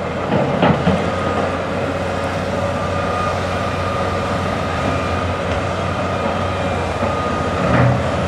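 Diesel engines of excavators and dump trucks running steadily across an earthworks site, with a steady high whine over the engine noise. A couple of knocks stand out, one about a second in and a heavier thud near the end.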